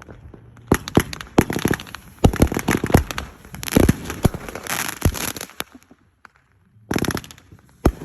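Fireworks going off: a rapid string of sharp bangs and crackling for about five seconds, a short lull, then another burst of bangs near the end.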